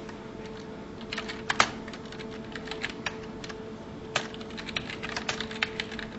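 Computer keyboard keys clicking in irregular runs as a short text message is typed, the loudest keystroke about a second and a half in, over a faint steady hum.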